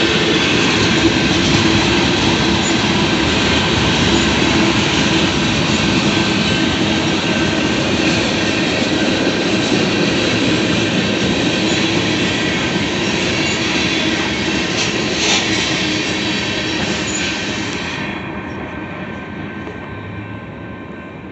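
Freight cars of a long CSX manifest train rolling past on steel wheels and rail, a dense steady noise with thin, steady squealing tones from the wheels. Near the end it fades away and loses its high end.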